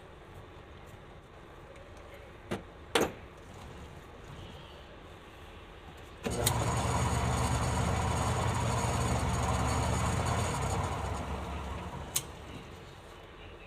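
Homemade lathe's belt-driven Century electric motor switched on, spinning the chuck with a pipe clamped in it with a steady hum, then switched off and running down. Before it start, two sharp knocks from the chuck key tightening the jaws.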